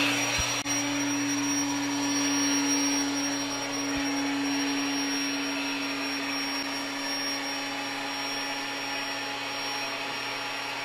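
Built-in electric air pump of a SoundAsleep Dream Series air mattress running on deflate, drawing air out of the mattress: a steady whirring hum with a thin high whine over a rushing hiss, easing a little in loudness.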